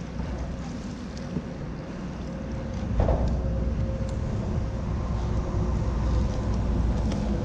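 Wind rumbling on an action camera's microphone over open water, louder from about three seconds in, with a faint steady hum underneath.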